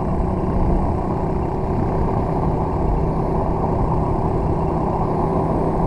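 Loncin 125 minibike's single-cylinder four-stroke engine running at a steady cruise, its hum holding one pitch, under a thick rush of wind on the rider's microphone.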